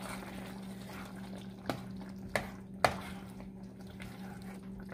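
A plastic spatula stirring a thick, simmering coconut-milk curry in a pan, with wet, bubbly liquid sounds. Three sharp taps, most likely the spatula knocking the pan, come close together a little under two to three seconds in, over a steady low hum.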